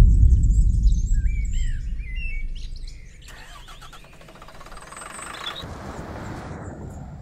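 Small birds chirping in quick gliding notes over a loud low rumble that fades over the first few seconds, followed by a steady rushing noise.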